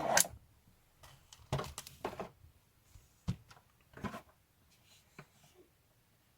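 Quiet desk handling sounds: a few separate soft knocks, rustles and sharp clicks spread over several seconds, with stillness between them.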